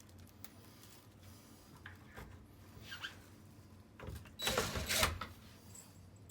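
A hand screwdriver starting screws into a plastic closet track organizer: scattered small clicks, then about four seconds in a loud scraping, rattling burst lasting about a second.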